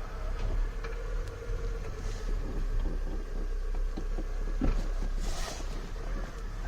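Citroën BX engine idling, heard from inside the car, with scattered light clicks and knocks and a brief rushing hiss about five seconds in.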